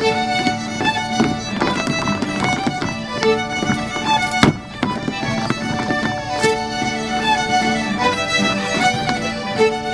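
Fiddle playing a lively dance tune, with a few sharp clicks and taps over it, the loudest about four and a half seconds in.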